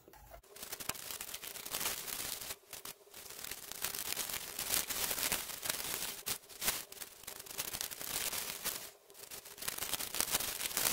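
Newspaper rustling and crinkling as it is unwrapped by hand from small eggs, going in stretches with a few brief pauses.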